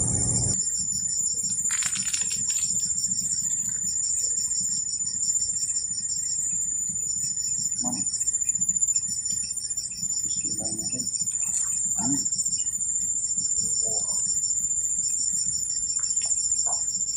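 Insect chorus: a steady high-pitched buzz with a pulsing trill over it that comes and goes.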